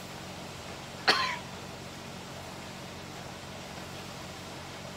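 A single sharp cough about a second in, over a steady low hum.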